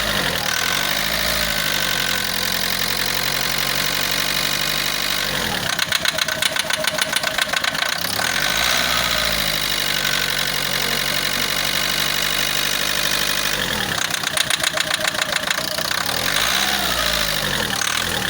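Common-rail diesel car engine idling and briefly revved up and back down about five times, breaking into a rapid knocking clatter during some of the revs. This is the knocking the mechanic gives as a symptom of a failing diesel rail sensor.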